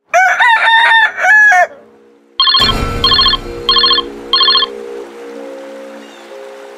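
A rooster crowing once, then a sudden hit followed by four short trilling rings in quick succession, over a held low chord that slowly fades.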